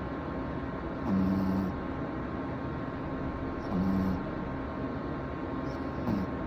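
Pekingese–pug mix puppy snoring in its sleep: three short snores, each a low hum with a hiss, about every two and a half seconds, over a steady background hum.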